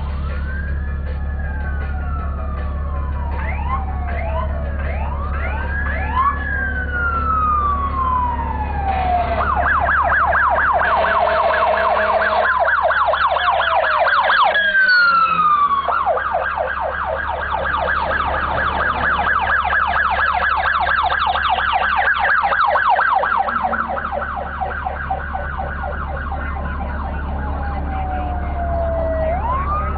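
Emergency vehicle sirens: a slow rising and falling wail, at times two sirens overlapping. About nine seconds in it switches to a rapid yelp, which breaks off briefly midway and runs until about six seconds before the end, when the slow wail returns. A steady low hum runs underneath.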